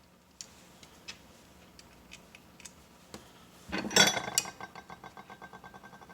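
Small metal parts handled on a workbench: a few light clicks, then a loud metallic clatter a little after halfway, followed by a quick run of ticks, about eight a second, fading away like a small part rattling to rest.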